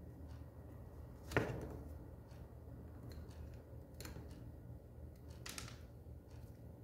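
Pliers and electrical wire handled on a wooden tabletop: one sharp knock about a second and a half in, then a few lighter clicks of the tool, over a low steady hum.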